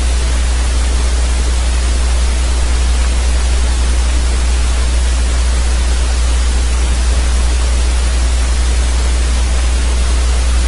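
Steady hiss with a strong, constant low hum underneath. This is electrical noise from the narrator's microphone or recording setup, and no other sound is heard over it.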